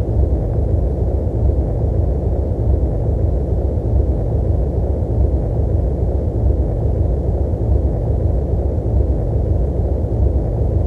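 A steady, deep rumbling noise with no tones or breaks in it.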